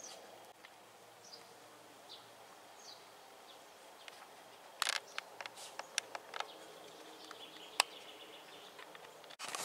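Faint garden ambience with small birds chirping now and then in short, high, falling calls. Partway through come a few sharp clicks.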